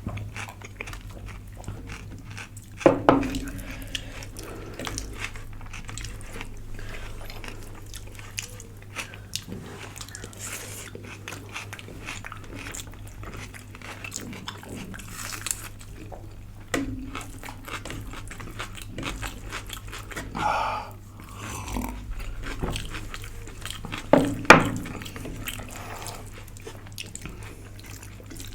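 Close-up eating sounds: chewing and biting of food, with small clicks throughout and a few louder knocks, one about 3 s in and one near the end.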